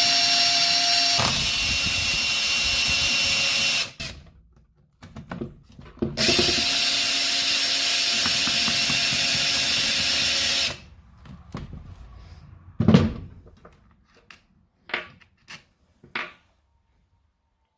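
Power drill-driver with an Allen bit running in two steady bursts of about four seconds each, backing out the 4 mm Allen screws that hold a HiKOKI framing nailer's magazine; its pitch shifts once a second or so into the first burst. Short knocks and clicks of the tool and parts being handled follow.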